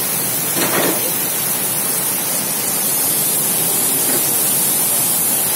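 Heavy rain pouring steadily, a dense even hiss of rain on paving and foliage, with a brief louder swell under a second in.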